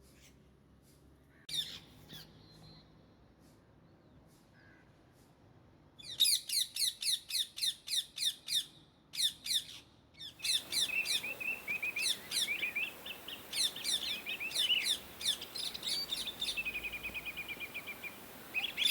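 Indian ringneck parakeets chirping: after a quiet start with a single call, rapid runs of shrill chirps set in, several a second. They become almost continuous, mixed with lower trilling phrases.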